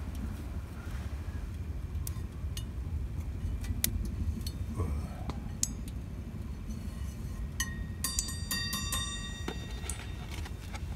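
Steady low rumble with scattered light clicks, and a brief cluster of ringing, glassy clinks a little past the middle.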